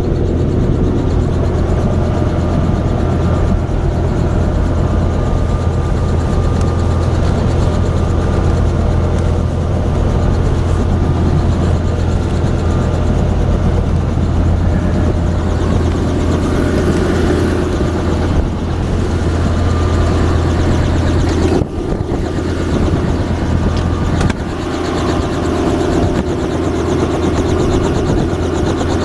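Helicopter engine and rotor running at idle on the pad, a loud steady drone with a deep hum. Heard from inside the cabin with the door open.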